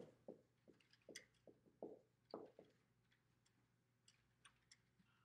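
Faint squeaks and taps of a dry-erase marker writing on a whiteboard: a quick run of short strokes over the first few seconds, then a few scattered faint ticks.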